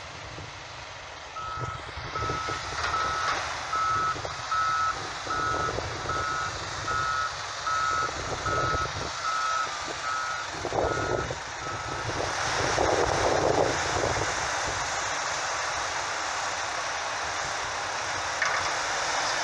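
A vehicle reversing alarm beeping evenly, about three beeps every two seconds, over the steady running of heavy diesel engines. The beeping stops about twelve seconds in, and a louder rush of noise follows.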